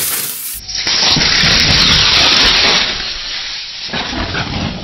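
Lithium-ion 18650 cell in thermal runaway after overheating on a hot stove, venting a loud hissing jet of sparks and flame. The hiss is strongest for the first few seconds, then dies down.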